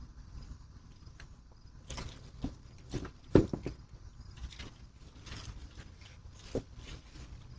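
Scattered light knocks and scuffs over a low steady rumble, the loudest knock about three and a half seconds in.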